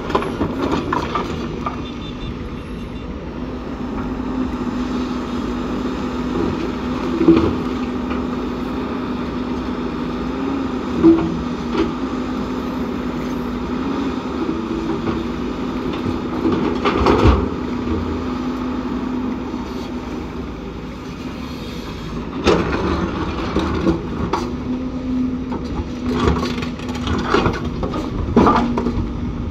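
Hydraulic excavator loading rock and earth into a dump truck: steady diesel engine hum, with several scattered thuds and clatters as material is dug and dropped.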